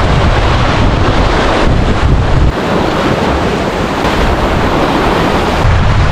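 Strong wind buffeting the microphone, with sea waves washing against a rocky shore.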